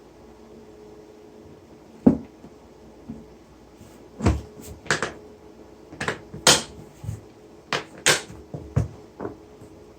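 A series of irregular knocks and clatters of objects being handled, about a dozen over seven seconds, some with a bright, ringing edge, over a faint steady hum.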